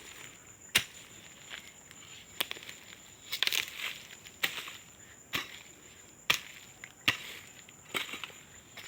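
Hoe blade chopping into loose soil, about one stroke a second, each strike a sharp thud followed by a short scrape of earth, loosening the ground around cassava cuttings.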